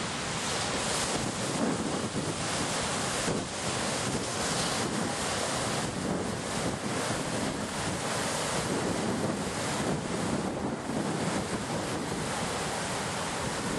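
Steady rush of wind and sea, with wind buffeting the microphone in uneven gusts.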